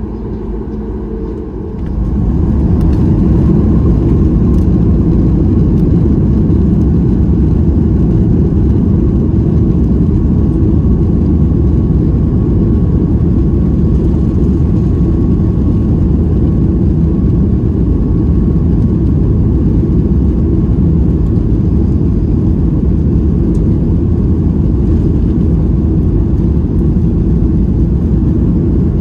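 Boeing 737-8 MAX's CFM LEAP-1B jet engines, heard from the cabin, spooling up to takeoff thrust about two seconds in. The engine and airflow noise then stays loud and steady.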